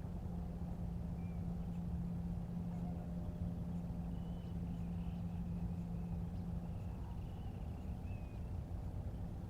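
Steady low hum of a distant motor, with a few short, faint, high-pitched bird calls over it.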